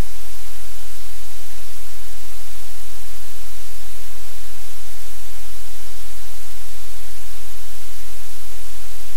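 Loud, steady static hiss with a low rumble underneath, unchanging throughout.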